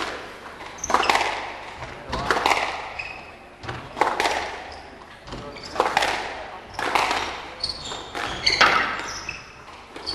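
Squash rally: the ball cracks off the rackets and walls about every second and a half, each hit echoing around the court.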